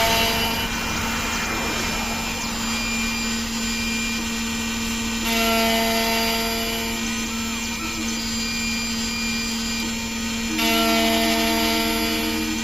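Xhorse Condor Dolphin XP-005 automatic key cutting machine milling an aluminum key blade, its cutter motor running with a steady whine. It grows louder for a stretch about five seconds in and again near the end.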